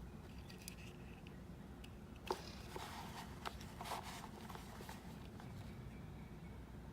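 Faint handling sounds from unboxing: a sharp click a little over two seconds in, followed by rustling and small clicks for about two seconds, over a steady low background hum.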